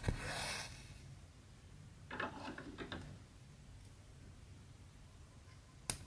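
Cross-stitch needle and embroidery floss being drawn through 14-count aida cloth, with hands brushing the fabric. There is a scratchy pull near the start, a cluster of small ticks and rustles about two to three seconds in, and a sharp tick near the end.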